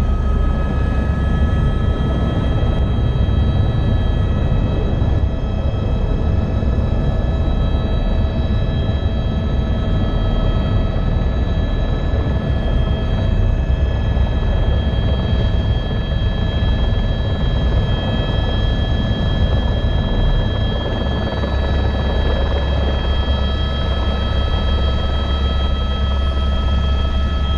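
Helicopter rotor and engine running hard during takeoff and low flight: a steady, loud rumble with several steady high whining tones over it.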